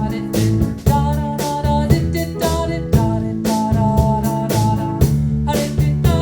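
Band playing a passage of a song with no sung words: a drum kit keeps a steady beat under guitar and a held melody line.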